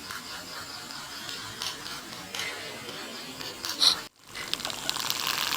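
Homemade electric egg beater whisking egg whites in a bowl, the whisk rattling and scraping against the bowl as the whites whip up creamy. The sound drops out for a moment about four seconds in, then continues a little louder.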